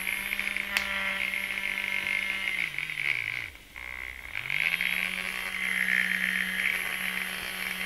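Nestlé-branded battery milk frother (coffee stirrer) with its wire whisk spinning in air. The small motor spins up, runs for about three seconds and winds down, then is switched on again for a longer run. A buzzing rattle rides over the motor hum throughout, which the owner puts down to the black plastic sleeve rubbing.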